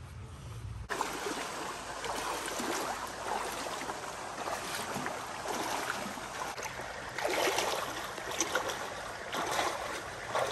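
A person wading through a shallow creek: water splashing and sloshing around the legs over the rushing of the stream, starting suddenly about a second in, with several louder splashes near the end.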